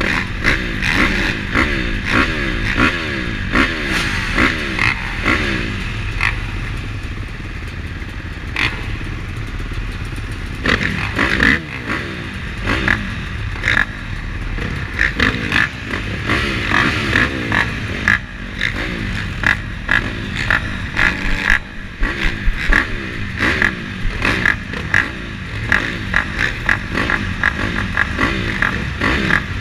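Several motocross bikes running at the starting gate, their riders blipping the throttles again and again so that the engines rise in pitch in short, repeated revs over a steady idle.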